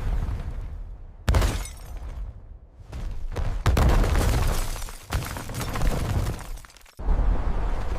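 Car crash sound effects: four sudden impacts a second or two apart, each followed by shattering and breaking that dies away, over a low rumble.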